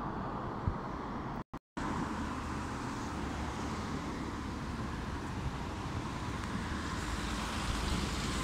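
Steady road traffic noise: engines running and tyres on the road, with a low rumble that builds near the end. The sound cuts out completely for a moment about one and a half seconds in.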